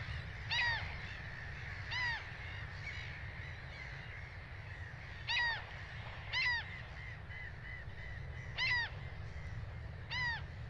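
Common gulls calling in their colony: six short mewing calls, each rising then falling in pitch, spaced a second or more apart, over a steady low rumble.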